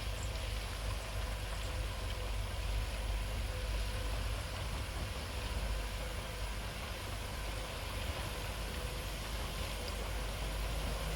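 Diesel engine of a heavy earthmoving machine running steadily at low revs, a low-pitched drone.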